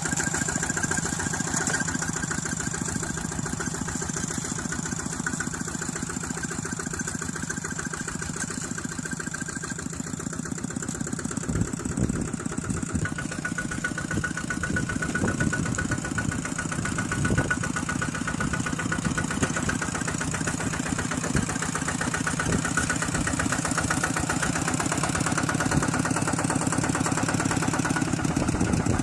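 A small engine running steadily at a constant pitch, with a few heavier low surges about halfway through.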